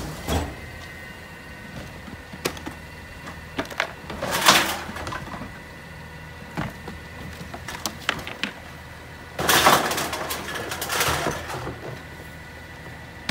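Rear-loader garbage truck idling with a steady hum and a thin high whine, while recyclables are tipped by hand from plastic curbside bins into its hopper. There is a short clattering rush a few seconds in and a longer one past the middle, with knocks of the bins against the hopper edge.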